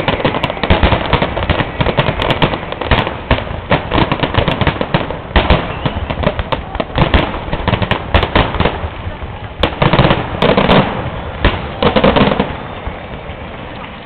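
Fireworks display going off in a dense barrage of rapid cracks and bangs, the closing salvo. It dies away about twelve and a half seconds in.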